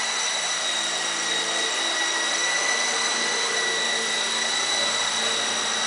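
Venom Beacon 4-channel RC helicopter in flight, its electric motors giving a steady high-pitched whine over a lower rotor hum.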